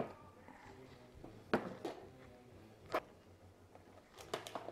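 Plastic tackle boxes being handled and set down on a table: a few separate light knocks and clacks, then a quick cluster of clatters near the end.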